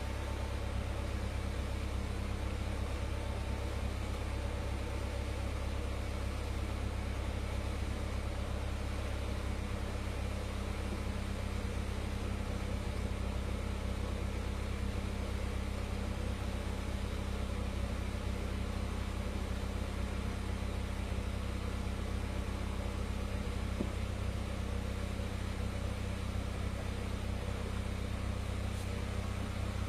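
Honda Civic Ferio engine idling steadily and driving the power-steering pump, running so the freshly rebuilt, refilled steering rack can be checked for leaks.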